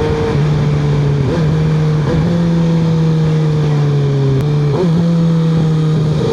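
Kawasaki ZX-6R's inline-four engine running through an M4 exhaust fitted with the Q3 Stage 2 baffle, heard while riding. The engine note holds steady, with a few brief dips and shifts in pitch and a slow slight fall in pitch across the middle.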